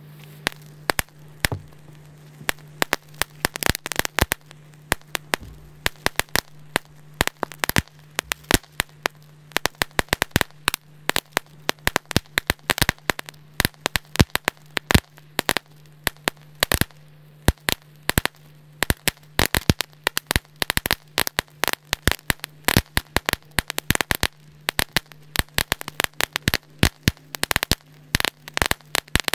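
Lesli Mini Stromboli ground strobe fireworks going off together, each flash giving a sharp crack, in a fast irregular crackle of pops, often several a second with short gaps.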